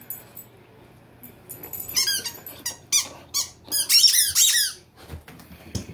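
Squeaker in a plush Tigger dog toy squeaking as a small dog bites and shakes it: a few quick high squeaks about two seconds in, then a faster run of them a couple of seconds later.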